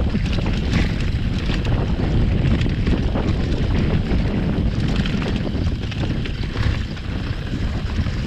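Mountain bike rolling downhill over a grassy, stony singletrack: a steady low rumble of tyres, with frequent small rattles and knocks as the bike jolts over bumps, under wind buffeting the microphone.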